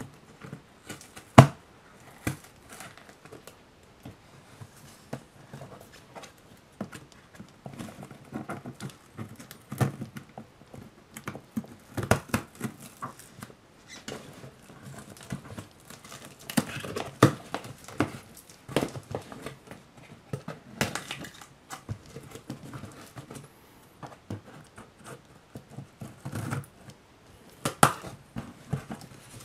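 Hands handling and opening a taped cardboard shipping box: irregular taps, scrapes and rustles of cardboard, with packing tape being worked loose. A sharp knock about a second and a half in is the loudest sound.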